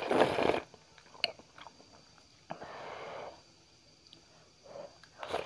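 Close-up eating of thick lomi noodles: a loud slurp at the start, then chewing with small clicks and a second, softer slurp about two and a half seconds in, and a short suck near the end.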